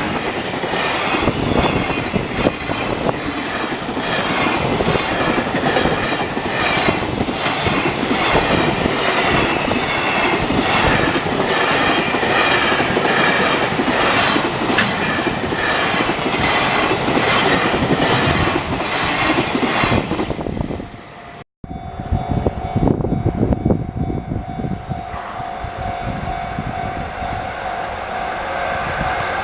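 A train passing close by over a level crossing, its wheels clattering steadily over the rail joints. After an abrupt cut about two-thirds through, a quieter scene follows with a steady ringing tone over a low rumble, typical of the level crossing's warning bell.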